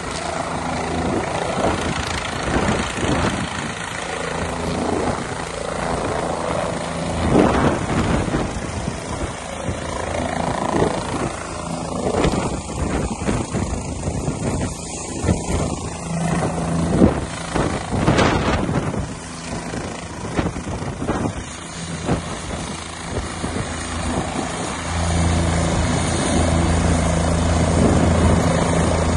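Helicopter turbine engine and rotor running: a loud, steady drone that grows louder near the end.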